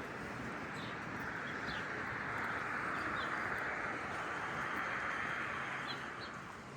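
Small birds giving short, scattered chirps over a steady hiss that swells for a few seconds in the middle and fades near the end.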